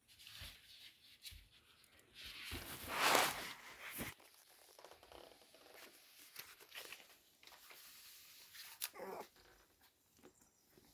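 Rustling and scraping noises, loudest about three seconds in, with a few sharp clicks and a brief pitched squeak near the nine-second mark.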